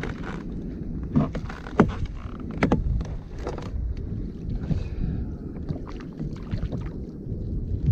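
Wind buffeting the microphone and water slapping against a plastic kayak hull, with a couple of sharp knocks about two seconds in and again a second later as the angler shifts his weight and stands up in the kayak.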